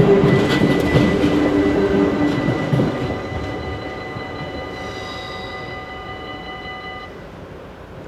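A Dutch electric commuter train passing over the level crossing, its wheel and motor noise fading away within the first three seconds. The crossing's warning bell keeps ringing with a steady high tone and cuts off about seven seconds in as the red flashing lights go out.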